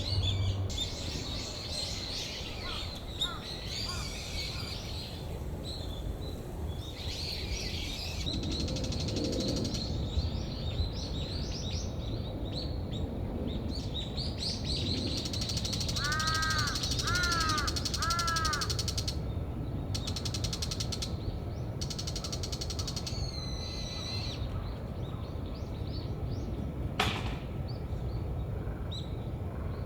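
Small wild birds chirping and twittering throughout, over steady low background noise. A crow caws three times, about a second apart, near the middle.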